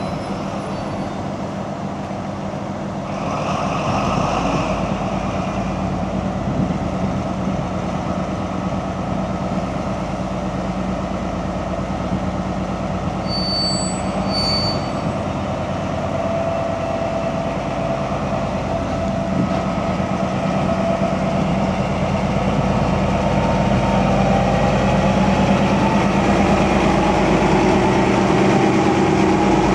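VR Class Dr16 diesel-electric locomotive's engine running as the locomotive moves slowly along the station tracks, growing louder, with its engine note rising over the last several seconds.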